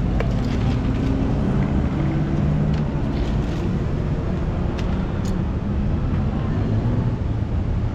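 Steady low rumble of street traffic, with a few faint clicks and taps over it.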